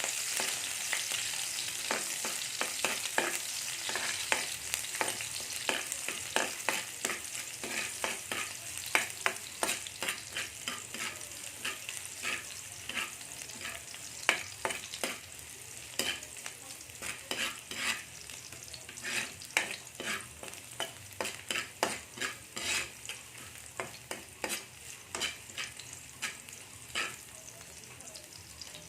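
Squid frying in a pan: a steady sizzle that slowly fades, with frequent sharp scrapes and taps of a utensil stirring it against the pan.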